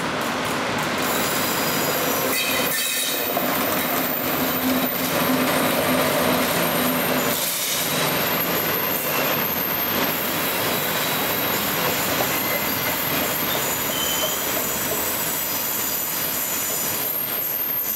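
SS8 electric locomotive and its 25T passenger coaches rolling past at low speed. The wheels on the rails make a steady rumble, with a high thin squeal over it.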